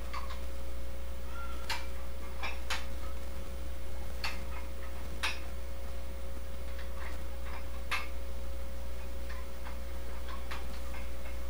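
Light, sharp clicks of a dumbbell at irregular intervals, roughly one or two every couple of seconds, during a set of one-arm biceps curls, over a steady low hum.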